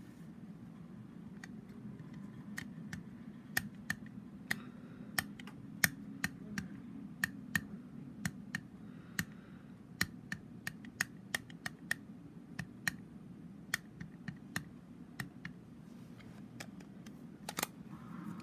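Light, irregular plastic clicks and taps, about one or two a second, with a louder click near the end, from clear stamps and an acrylic stamping block being handled. A low steady hum runs underneath.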